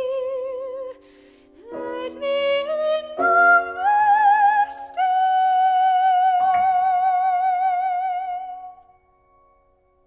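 Operatic soprano with piano accompaniment. The voice climbs in steps to a long held high note with wide vibrato, over sustained piano chords, and the music dies away about nine seconds in.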